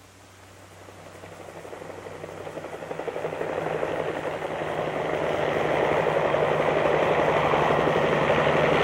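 A low rumbling roar that swells steadily over about six seconds and then holds loud.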